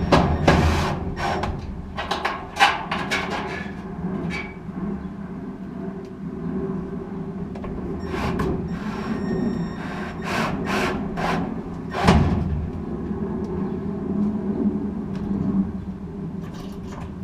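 Screws being fastened during reassembly of a GE gas dryer: scraping and rubbing of tools on metal parts with irregular clicks and knocks, and one sharp knock about twelve seconds in.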